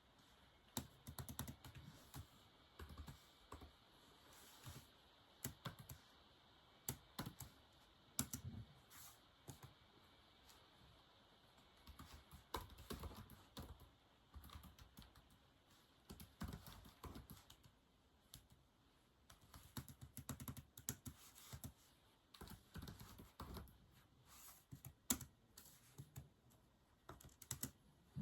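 Typing on a keyboard: runs of quick key clicks with short pauses between them.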